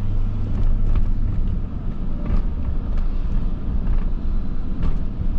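Car driving slowly, heard from inside the cabin: a steady low engine and road rumble with a few faint ticks.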